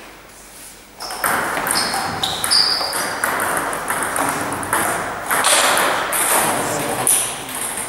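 Table tennis ball knocking against bats and table in a sports hall, with a few short high squeaks over a steady noisy hall background.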